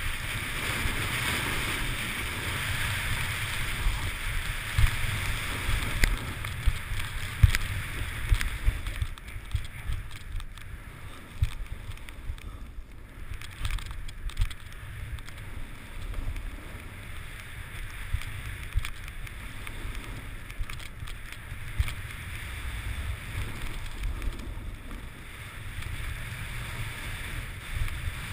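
Wind rushing and buffeting over a helmet-mounted action camera's microphone while skiing fast through deep powder, with the hiss of skis through the snow and scattered knocks. The snow hiss is louder for the first eight or nine seconds, then eases off.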